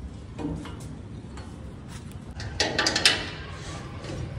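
Metal bar gate being pulled shut and its latch fastened with a padlock: a soft knock early, then a short burst of loud metallic clanks and rattles a little past halfway.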